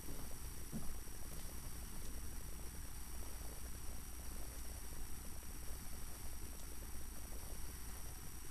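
Steady low electrical hum with hiss and a faint high-pitched whine.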